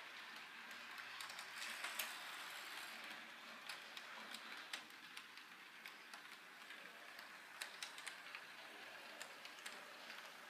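Model diesel locomotive and passenger cars running on track: a faint steady motor and gear whir with irregular clicking of the wheels over the rail joints.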